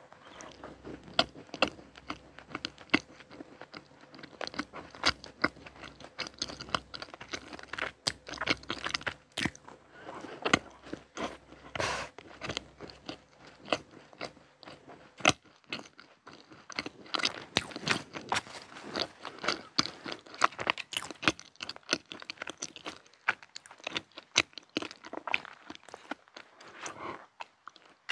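Close-miked eating of chocolate-coated desserts: crunchy bites and chewing, a steady run of sharp crackly crunches. In the second half the bites include a chocolate-glazed éclair with a crunchy topping.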